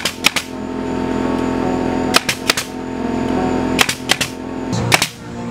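DeWalt 18-gauge pneumatic brad nailer firing about seven sharp shots, mostly in pairs a second or two apart, driving nails into wooden door trim. Under them an air compressor hums steadily and cuts off near the end.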